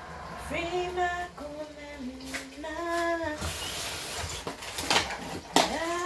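A voice singing a slow tune in long held notes, with a few sharp knocks in the second half, the loudest near the end, such as an egg shell being cracked against a bowl.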